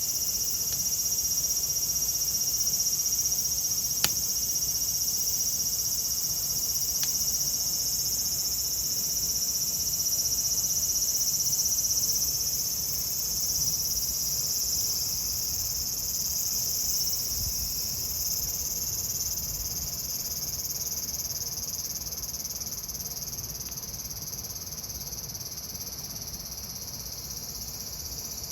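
Cicadas singing in a dense, steady high-pitched drone that slowly fades over the second half. A sharp pop from the burning firewood comes about four seconds in, and a fainter one a few seconds later.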